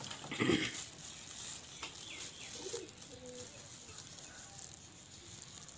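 Clear plastic wrap crinkling as it is slowly peeled off the soil ball of a rooted litchi air-layer, while a dove coos in the background.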